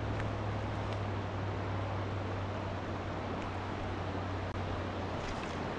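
Steady rush of stream water flowing over and between rock ledges, with a low steady rumble underneath.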